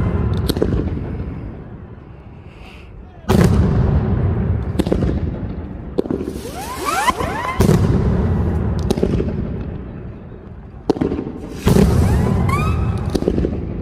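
Mascletà firecrackers going off in dense, loud volleys of rapid bangs that start suddenly three times, then die away over a few seconds. Whistling rockets rising in pitch are mixed in with the second and third volleys.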